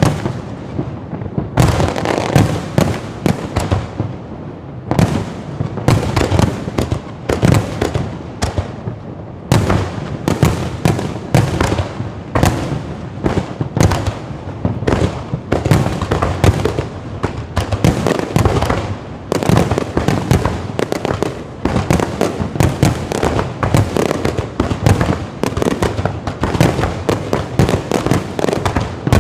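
Aerial fireworks going off in a rapid, continuous barrage: many sharp bursts a second with echoing booms and crackle between them.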